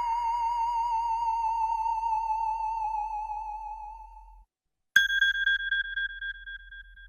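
iPhone ringtones played in turn. A synthetic, theremin-like electronic tone with a steady vibrato fades out about four seconds in. After a short silence comes a single bright electronic ping that rings away.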